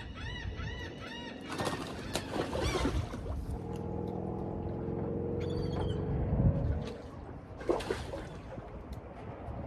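A bird calling a rapid series of repeated notes, about four a second, for the first second or so, then a burst of splashing water. A low droning hum follows, swells, and cuts off about seven seconds in, with a short sharp splash just after.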